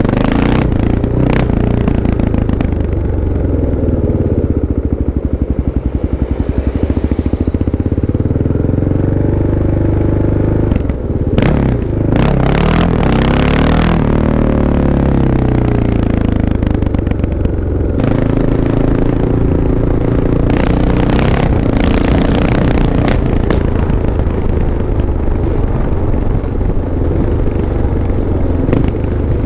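Kawasaki KLX650's single-cylinder four-stroke engine running, mostly at a steady idle, with the throttle opened several times in the middle and again later so the pitch rises and falls.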